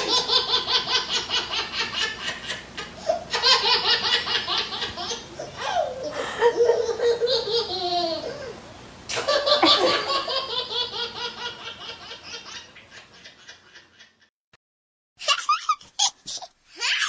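A baby laughing in long fits of rapid, breathy giggles, with a few high gliding squeals between the fits. The laughter fades out, there is a short gap, then it starts again in short separate bursts near the end.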